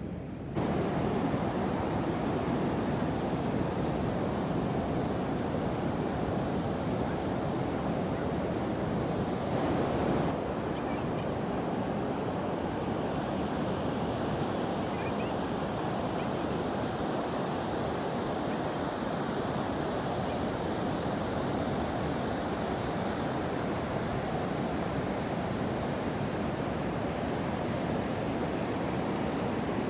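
Ocean surf washing in a steady rush, with some wind buffeting the microphone. The sound steps up abruptly about half a second in.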